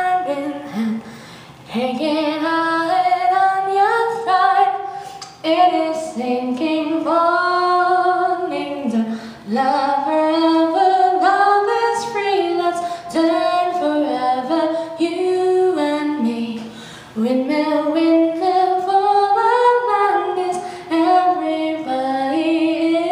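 One person singing alone, with no accompaniment: a melody of held notes sliding in pitch, sung in phrases with short breaks between them.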